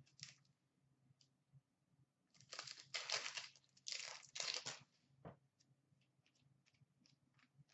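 Upper Deck hockey card pack wrapper crinkling and tearing as a pack is ripped open, in a few noisy bursts from about two to five seconds in. Faint ticks of cards being handled follow.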